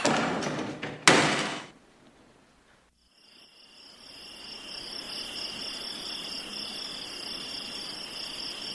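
Two short, sharp noises in the first two seconds, the second the louder. Then a moment of quiet, and from about three seconds in, crickets chirping in a steady high trill.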